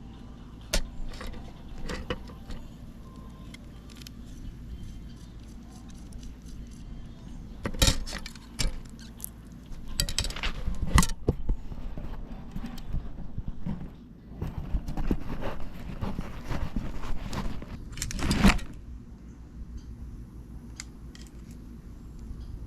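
Handling of all-metal arrows: scattered sharp knocks and metallic clinks, with two longer stretches of rustling and jingling in the middle.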